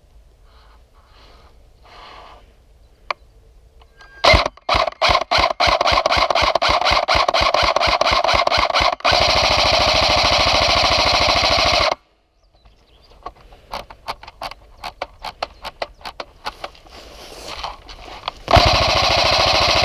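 Airsoft guns firing on full auto: a rapid string of shots from about four seconds in, then a sustained buzzing burst that cuts off suddenly. Scattered single cracks follow, then another sustained burst near the end.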